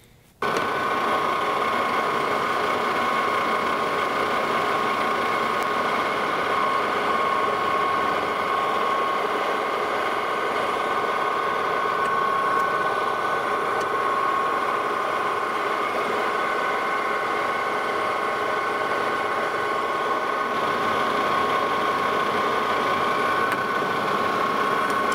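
Metal lathe running while turning down the outside of a cast brass part: a steady mechanical sound with a steady whine through it. It starts abruptly about half a second in.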